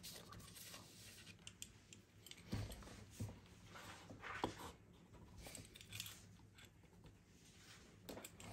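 Faint scratching of graphite pencil strokes on drawing paper, in a few short bursts.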